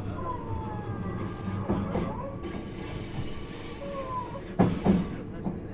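Inside a 651 series electric train on the move: steady rumble of the running carriage, with faint squealing tones from the wheels that rise and fall. Two sharp knocks come close together a little before the end.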